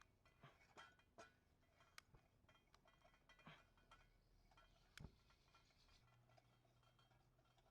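Near silence broken by a handful of faint, sharp metallic clinks and taps, the loudest about five seconds in.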